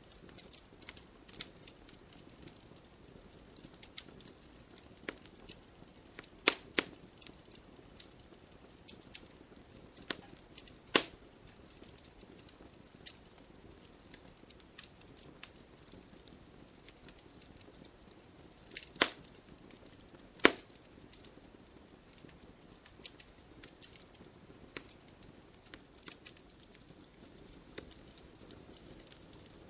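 Wood fire crackling in a fireplace: scattered sharp pops and snaps over a faint hiss, with a few louder pops about six and eleven seconds in and twice close together near two-thirds through.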